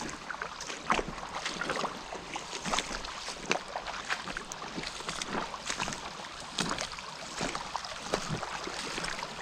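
Shallow creek water splashing and sloshing in irregular small bursts, as feet wade and step through it.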